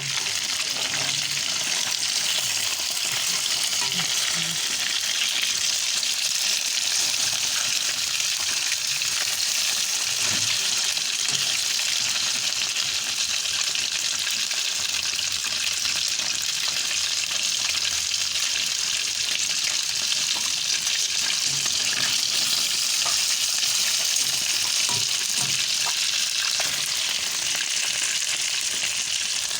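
Catfish frying in hot oil: a steady, even sizzle with a few faint crackles.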